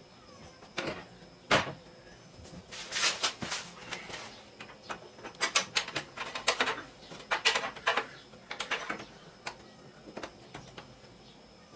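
Small metal hardware clicking and clinking in irregular bursts: flat washers, lock washers and nuts being handled and hand-threaded onto running-board bracket bolts.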